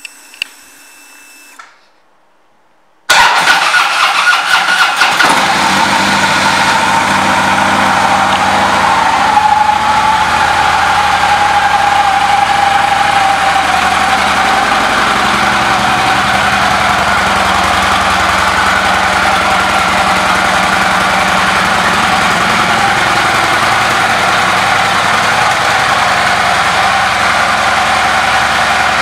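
2012 Harley-Davidson Road King Classic's air-cooled V-twin starting about three seconds in, then settling into a steady idle.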